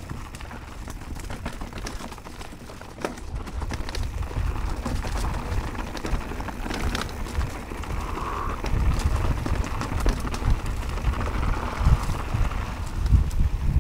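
Mountain bike rolling fast down a dirt singletrack: tyres crunching over dirt and roots, with frequent knocks and rattles from the bike. A low rumble of ride noise builds from about four seconds in as speed picks up.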